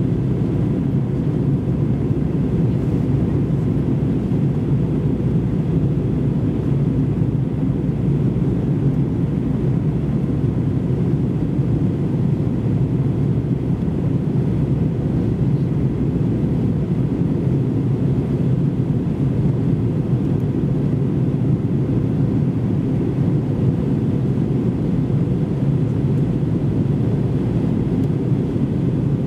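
Steady low cabin rumble inside an Airbus A321-200 airliner descending through cloud: engine and airflow noise heard from a window seat over the wing, unchanging throughout.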